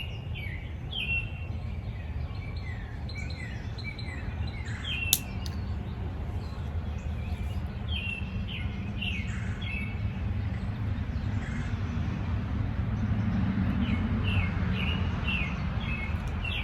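Birds chirping: runs of short, quick down-slurred chirps that come in bursts and pause between them, over a steady low rumble. A single sharp click about five seconds in.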